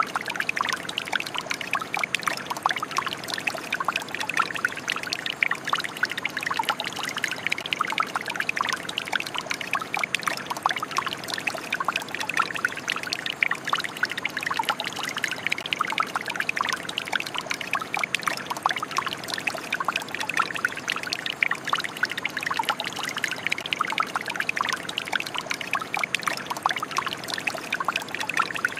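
Shower running: water spraying and splattering in a dense, steady stream.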